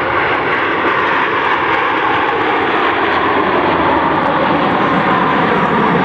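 Airplane engine noise, loud and steady throughout, from an aircraft flying at an air show.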